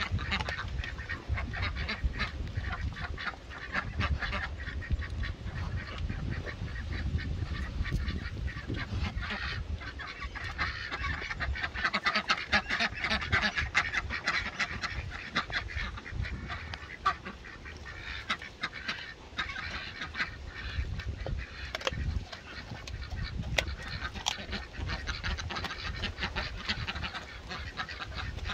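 Pekin ducks quacking and honking, busiest about twelve to fifteen seconds in, over a dog gnawing and crunching on a raw rabbit carcass with bone in it, with a run of short crunching clicks.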